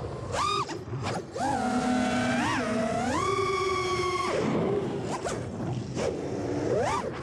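Racing quadcopter's T-Motor F40 Pro V2 2400kv brushless motors and props whining, the pitch rising and falling with the throttle. A long high whine drops off suddenly about four seconds in, and another quick rising whine comes near the end.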